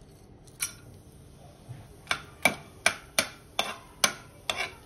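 A steel spoon stirring whole spices in hot oil in an aluminium pressure cooker, clinking sharply against the pot about three times a second from about two seconds in. A single clink comes about half a second in as the spices are tipped in from a steel bowl.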